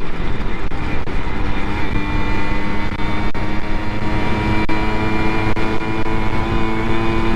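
Simson two-stroke moped engine running at a steady cruising speed under way, its pitch holding nearly constant. Heavy wind rumble on the microphone lies under it.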